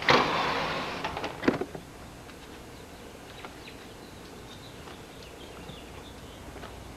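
A short rush of noise at the start and a clunk about a second and a half in, then quiet outdoor ambience with a few faint, high bird chirps.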